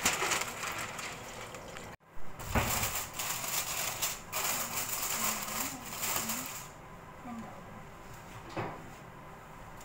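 Baking paper rustling, then aluminium foil crinkling as it is pressed and crimped down over a metal roasting tray, with a dull knock just after an abrupt cut about two seconds in. The crinkling eases to quieter handling near the end.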